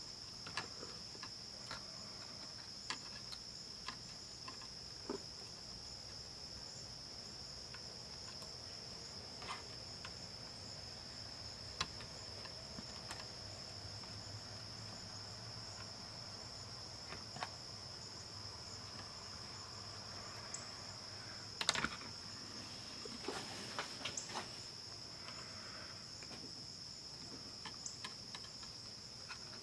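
Faint scattered clicks and taps of tweezers and a soldering iron working on a small circuit board while wires are soldered, with the loudest cluster of clicks about two-thirds of the way in. A steady high-pitched whine runs underneath.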